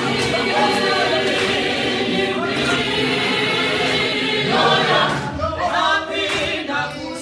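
Mixed-voice South African student choir singing a gospel song unaccompanied, in close harmony.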